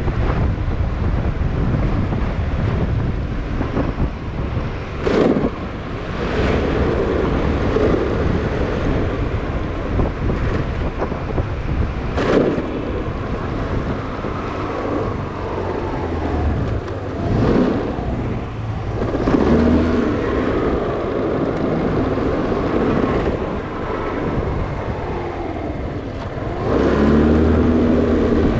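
A scooter's small engine running under way, with wind buffeting the microphone; the engine pitch rises twice as it picks up speed, and a few short knocks come through.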